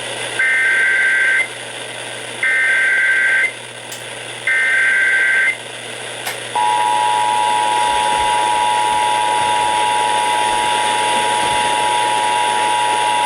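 Emergency Alert System SAME header: three bursts of shrill two-tone data, each about a second long, a second apart. About six and a half seconds in, the steady two-tone EAS attention signal follows, signalling that an alert is about to be read.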